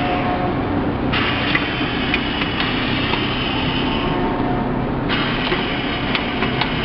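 Automatic lunch-box sealing and packing machine running: a steady mechanical hum with scattered clicks, and a hiss that starts suddenly about a second in and again about five seconds in, each time fading away over a few seconds.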